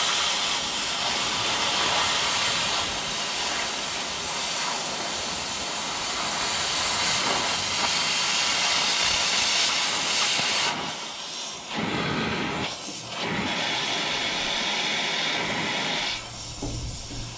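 Oxy-fuel cutting torch cutting into a snow plow's steel bracket: a loud steady hiss of the cutting jet for about ten seconds. Then the hiss drops, quieter and broken by short gaps, as the cutting lever is let off and only the preheat flame burns.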